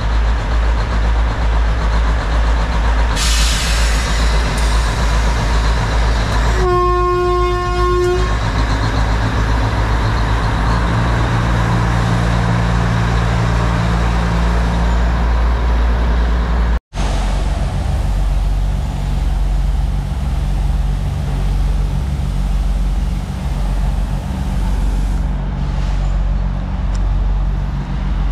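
Matheran toy train's narrow-gauge diesel locomotive running with a steady low engine rumble. Several seconds in, its horn sounds once, a single steady toot lasting about a second and a half. Shortly before the toot there is a brief hiss.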